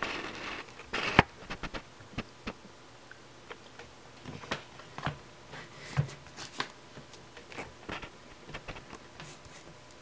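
Handling noise at a desk: scattered small clicks and taps as a Fluke multimeter's rotary selector dial is turned and the meter is handled, setting it up to measure a capacitor. A rubbing sound fills the first second, followed by a sharper click.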